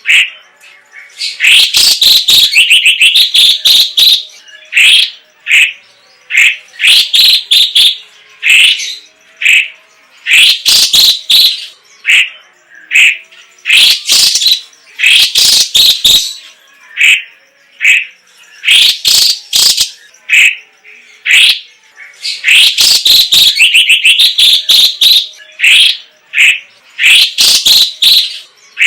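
Orange-bellied leafbird (cucak cungkok) singing vigorously: loud, fast phrases of sharp chirps and whistles, each a second or two long, with short pauses between them.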